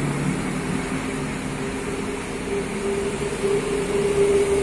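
Parked coach bus idling with a steady hum; a higher drone in it grows louder from about two seconds in.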